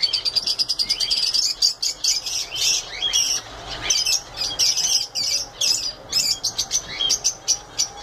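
Budgerigars chattering: a dense, continuous run of quick high chirps and warbles.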